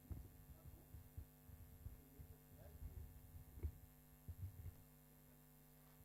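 Near silence: a steady electrical hum with faint, irregular low thumps that stop about three-quarters of the way through.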